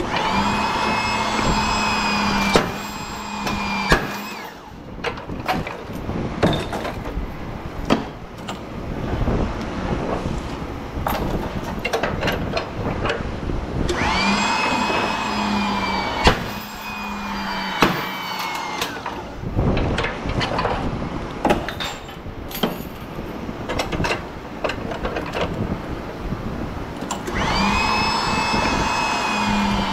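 A handheld power tool's motor spins up and runs for about two seconds, three times at even spacing, while transformers are removed from HID light fixtures. Between the runs come sharp metal clanks and knocks of parts being handled.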